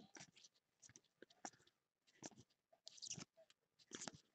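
Faint, soft rustles and clicks of football trading cards being slid off a stack one at a time, a handful of short, irregular card-on-card scrapes.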